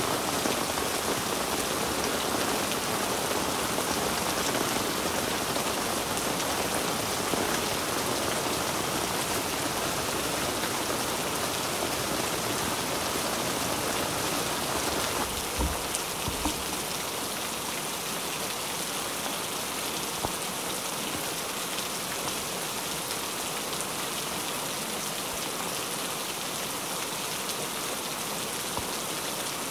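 Heavy rain falling steadily on tent fabric, an even hiss, a little quieter after about halfway. A couple of soft low thumps come about halfway through.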